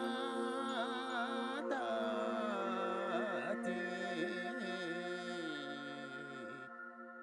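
Background music: a held drone under a slowly gliding melody, fading out and stopping near the end.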